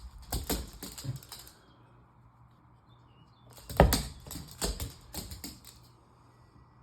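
A puppy tussling over a ball: two bursts of rapid clattering taps, one in the first second and a half and another starting about three and a half seconds in with a single loud knock.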